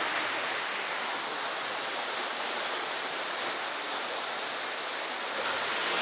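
Mountain waterfall pouring down a rock face: a steady, even rush of falling water.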